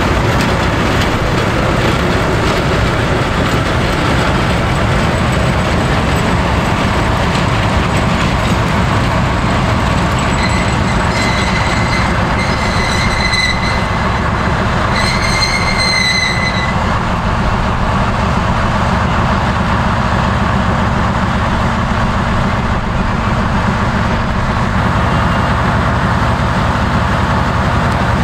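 SM30 diesel shunting locomotive running steadily on the track, its engine a continuous low rumble. A high-pitched squeal is heard three times in the middle.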